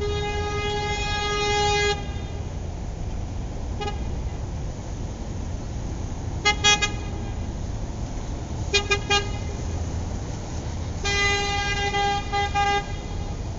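Car horn sounding in a pattern of blasts: a long blast that ends about two seconds in, a faint short toot, two quick runs of three short beeps, then another long blast of about two seconds near the end. A steady low rumble runs underneath.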